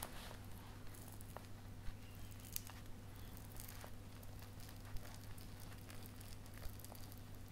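Faint wet crackling and scattered small ticks as a halved red finger lime is squeezed between the fingers, pushing out its bead-like juice vesicles. A steady low hum runs underneath.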